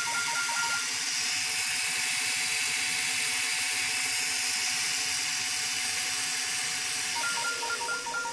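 Small DC gear motor with a plastic gearbox running, a steady whir with a hiss. A rapid two-pitch beeping stops about a second in and returns near the end.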